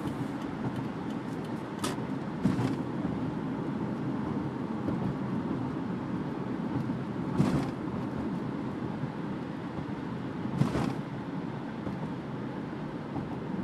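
Toyota Prius cabin noise at about 45 mph: steady road and tyre noise with the hybrid's gas engine running under light load on an incline. A few brief knocks break through, near 2, 7.5 and 11 seconds in.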